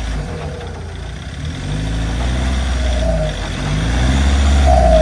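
Mahindra Scorpio 4x4's engine under load while crawling through a rutted mud ditch, the revs rising and falling several times as the driver works the throttle, getting louder toward the end.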